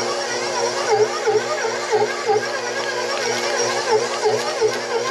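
KitchenAid stand mixer running with its dough hook, kneading a ball of high-gluten pizza dough that has pulled away from the sides of the steel bowl. The motor hums steadily, its pitch dipping and recovering about twice a second as the hook turns through the dough.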